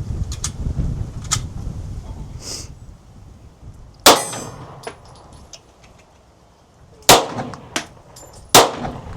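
Three gunshots: one about four seconds in, then two more about a second and a half apart near the end, each with a short ring after it. Wind rumbles on the microphone at the start.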